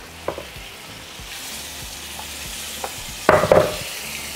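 Green salsa sizzling and simmering in a hot stainless-steel pan of ground beef and potatoes, with a wooden spoon stirring through it. There is a short, louder clatter a little over three seconds in.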